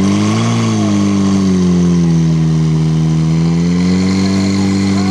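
Portable fire pump engine running hard at high revs while pumping water out through the attack hoses, its pitch rising and falling slightly about half a second in, then holding steady.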